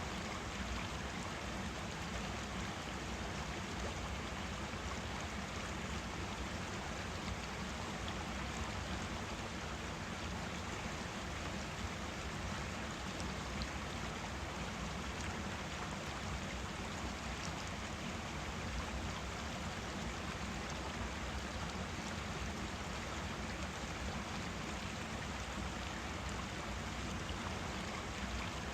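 Forest stream flowing, a steady, even rush of running water with no change.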